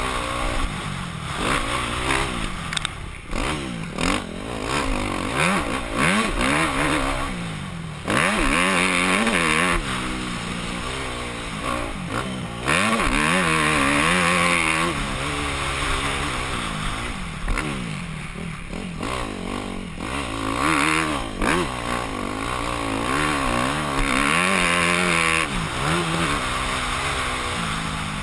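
Yamaha YZ250F four-stroke single-cylinder motocross engine, heard from a helmet camera, revving up and dropping off again and again as the rider shifts and throttles through the track. There are several loud stretches of rushing noise lasting a couple of seconds each.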